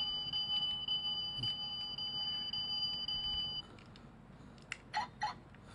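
Die-cast toy car's electronic sound unit giving a steady high beep tone that cuts off about three and a half seconds in. A few sharp plastic clicks follow about five seconds in as its doors are handled.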